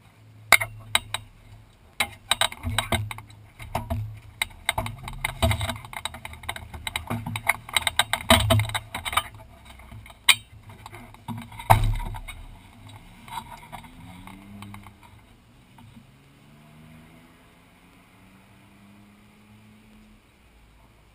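Clicks, knocks and rattles of seat fittings and gear inside a stationary Ferrari 458 Challenge's cabin as the occupants unbuckle and climb out, with a heavy thump about twelve seconds in. Faint short rising whines repeat through the later, quieter part.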